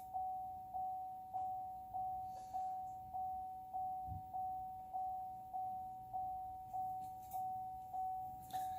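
Car warning chime dinging steadily, a little under two dings a second, each ding fading before the next.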